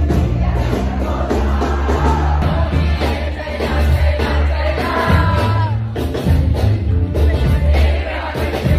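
Amplified live band music with a heavy, sustained bass line and a singer, mixed with the voices and cheers of a packed audience.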